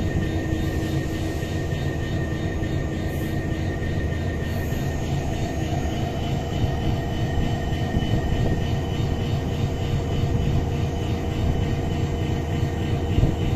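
Diesel engine of a new GE GT38ACe (KAI CC 205) locomotive running steadily while the locomotive stands still.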